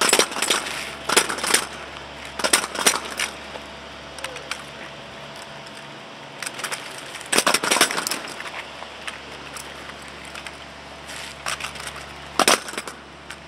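Drill rifles clacking as hands slap, spin and pass them in exhibition drill: clusters of sharp wooden and metal clacks, with the loudest single crack near the end.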